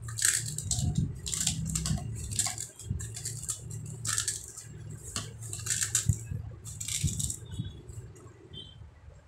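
Hand mixing and kneading a crumbly cornflake and arrowroot dough in a stainless steel bowl: repeated scraping, crunching strokes about once or twice a second, growing fainter near the end.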